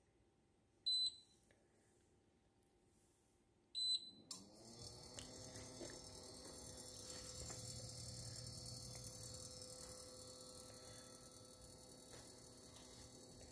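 KitchenAid induction range's touch controls beeping twice, then the cooking zone under a pot of water switches on. A hum rises briefly in pitch and settles into a steady hum with a high hiss.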